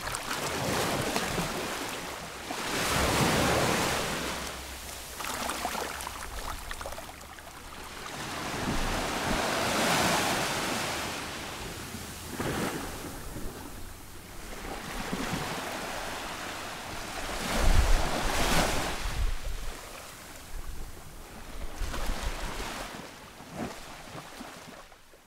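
Sea waves washing in, swelling and fading every few seconds, with wind rumbling on the microphone.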